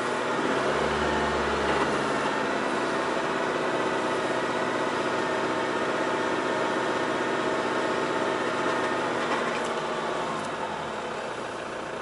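Four-wheel-drive vehicle engine idling steadily, heard from inside the cabin, easing slightly in level near the end.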